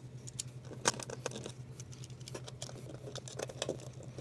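Light clicks and rattles of wires, a small screwdriver and a plastic smoke detector base being handled as wires are fitted to its terminal screws, over a steady low hum.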